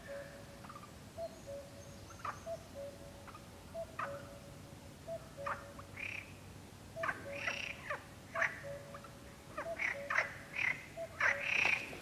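Perez's frogs (Iberian water frogs) croaking in short rasping calls, coming thicker toward the end. Behind them a common cuckoo repeats its two-note cu-coo, a higher note falling to a lower one, over and over.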